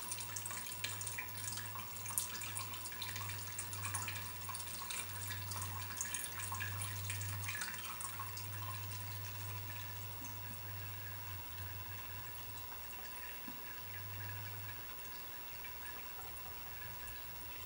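Petrol running in a thin stream through a Dellorto carburettor jet and trickling into a tall plastic cylinder, a steady splashing trickle that grows softer toward the end. A low hum lies underneath.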